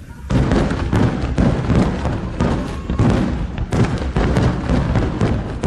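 Rapid barrage of large aerial firework shells, ten-inch shaku-dama, bursting one after another in a continuous run of booms with a deep rumble beneath. The barrage breaks in about a third of a second in.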